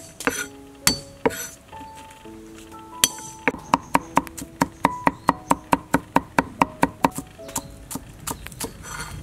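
Cleaver chopping garlic on a wooden cutting board. A few scattered strikes come first, then from about three seconds in a quick, even run of roughly three to four chops a second, over soft background music.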